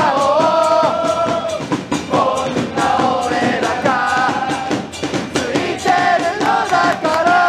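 Football supporters' end singing a chant in unison, held notes rising and falling together, over steady drum beats.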